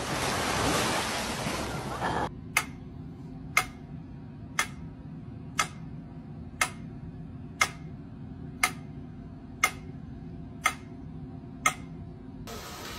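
Surf and wind noise for about two seconds, then a cut to steady mechanical ticking: ten sharp clicks about one second apart, over a low hum.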